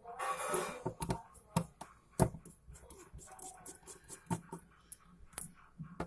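A brief scrape followed by a string of sharp clicks and taps, the loudest about two seconds in: tools and fingers working on a smartphone's plastic casing and parts during disassembly.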